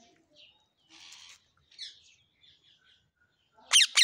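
Rose-ringed parakeet giving faint, scattered chirps, then near the end a burst of loud, shrill screeches.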